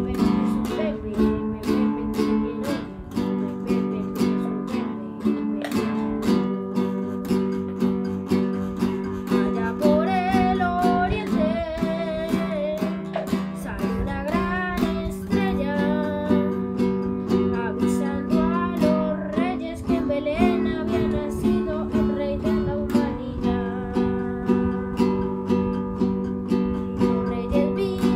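Acoustic guitar strummed in a steady rhythm of chords, with a boy's voice singing along over the middle part.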